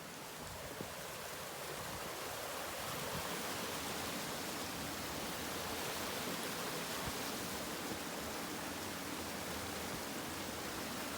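Steady rushing outdoor noise, building over the first few seconds and then holding even, with a faint click about a second in.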